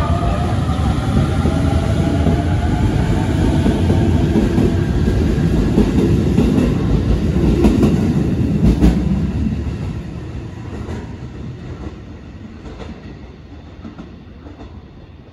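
JR East E531-series electric train running past the platform as it pulls away. A motor whine rises in pitch at first over heavy wheel rumble, with a few rail-joint clacks. The train then fades away from about ten seconds in.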